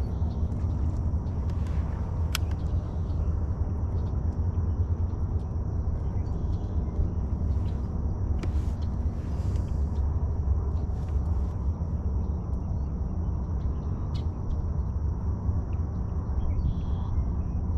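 Boat motor running steadily with a low rumble.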